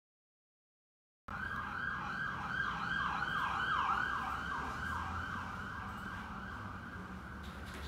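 Emergency vehicle siren in a fast yelp, a rapid run of sweeping tones about three a second. It starts after about a second of dead silence and fades toward the end.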